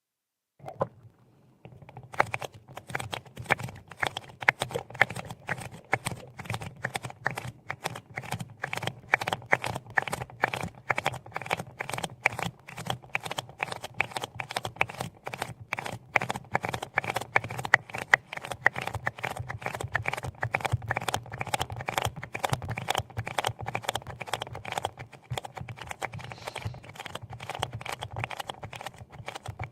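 Rapid, continuous tapping or clicking on a hard object, several clicks a second, starting about a second in after a brief silence.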